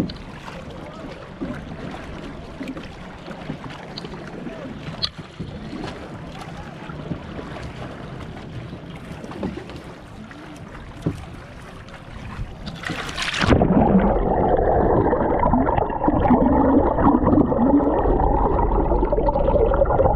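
Water lapping and splashing around a small outrigger boat, with light wind on the microphone. About two thirds of the way through there is a splash as the action camera goes under the surface, and the sound turns louder and muffled: an underwater rushing and bubbling.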